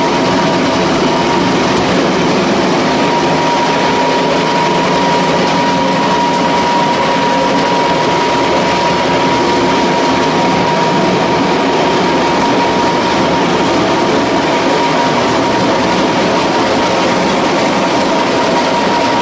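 Animal feed pellet mill running steadily while making pellets: a constant, dense mechanical din with a steady high whine over it.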